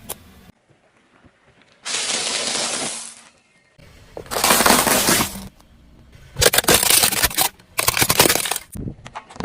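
Crunching and crackling of objects being crushed, in several separate bursts full of quick cracks and clicks, the loudest about halfway through and again near the end.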